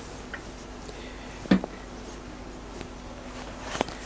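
Two knocks from the stripped motorcycle frame as it is gripped and shifted by hand. The louder one comes about a second and a half in and a smaller one near the end, with a few faint clicks between.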